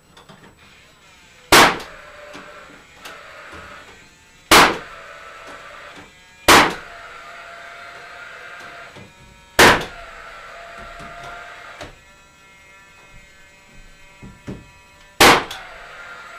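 Cordless gas framing nailer (Paslode) firing five times, a few seconds apart, driving nails to fasten a wall's bottom plate down over shims. A steady whir follows each shot.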